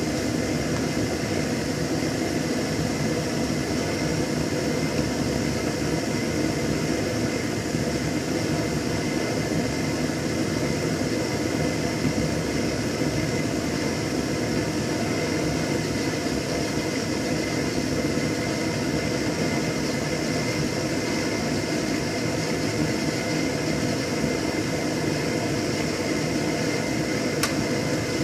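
MTZ-82 tractor's D-240 four-cylinder diesel idling steadily while it warms up after a cold start at −7 °C. A short sharp click near the end.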